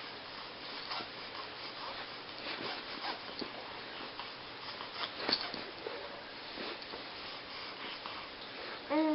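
A young baby's small snuffles and rustling movements, with a brief squeaky vocal sound right at the end.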